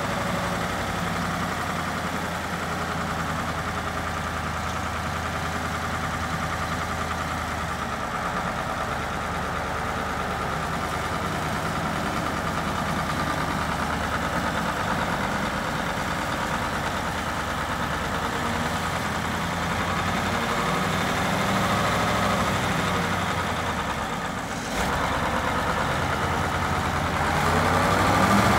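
1971 Massey Ferguson 1500 four-wheel-drive tractor's Caterpillar 1160 V8 diesel running steadily at low revs as it drives slowly. About 24 seconds in the sound dips briefly, and near the end the engine note rises and gets louder.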